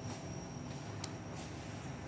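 Quiet room tone: a low steady hum with one short click about a second in.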